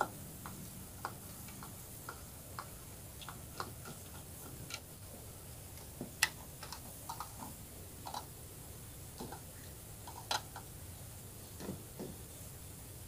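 Scattered light clicks and taps of an inverter welding machine being taken apart by hand: a screwdriver at the circuit board, wire connectors pulled and the board handled as it is lifted out. The sharpest clicks come about six seconds in and just after ten seconds.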